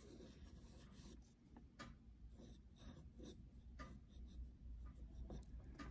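Faint scratching of a Blick Studio graphite pencil drawing circles on paper, in short uneven strokes.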